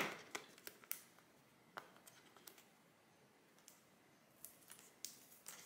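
Faint, scattered clicks and scratches of fingernails picking at the seal on the edge of a small cardboard box, a few in the first two seconds and a few more near the end.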